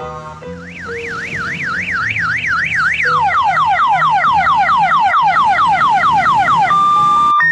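Electronic vehicle siren cycling through its tones: a pitch warbling up and down about three to four times a second, switching about three seconds in to a faster run of falling sweeps, about seven a second, and ending on a short steady tone.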